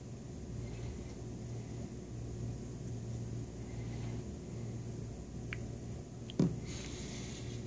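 Steady low room hum with a few faint ticks. A little over six seconds in, a single sharp knock of handling noise, followed by about a second of rustling hiss.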